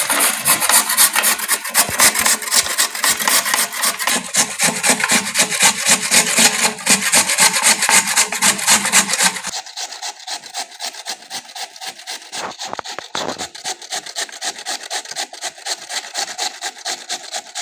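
Raw potatoes being grated by hand on a grater: quick, even rasping strokes, several a second, that turn lighter about halfway through.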